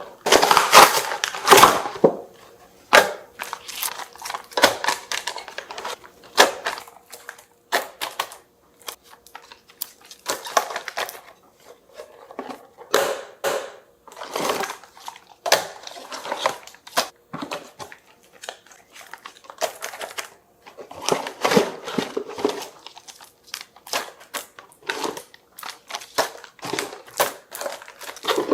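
Irregular crinkling and rustling of plastic food packaging being handled, with scattered clicks and knocks as items are moved about.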